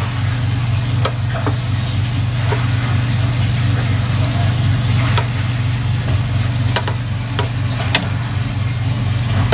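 Dough balls deep-frying in hot oil, a steady sizzle with occasional sharp ticks and pops, over a steady low hum.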